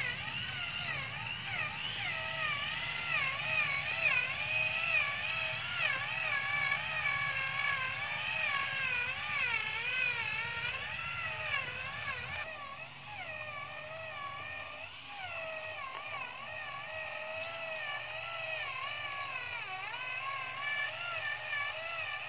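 Electric motor and gearbox of a small RC toy truck whining as it drives under a load of bamboo logs, the pitch wavering up and down continuously with speed and load. A lower rumble drops away about halfway through.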